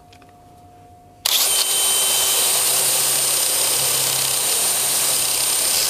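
Cordless drill spinning a conical abrasive bit against the top edge of a cylinder bore, starting about a second in and running steadily: a loud grinding hiss with a thin high whine. It is cutting the chamfer that eases the piston rings into the bore.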